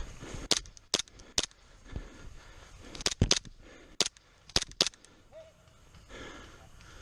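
Airsoft guns firing single shots: three sharp cracks in the first second and a half, then a quicker cluster of about half a dozen between three and five seconds in.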